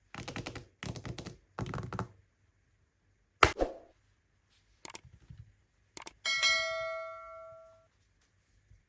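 Three short bursts of rapid rattling ticks, then a few sharp knocks, then a single bell-like ding that rings out and fades over about a second and a half.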